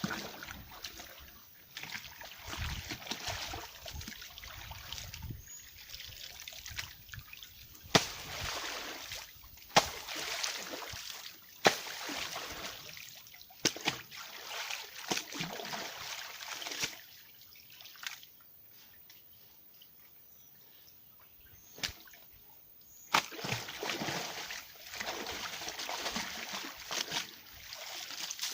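Laundry being washed in water: irregular sloshing and splashing, with a few sharp splashes. There is a quieter stretch of a few seconds past the middle.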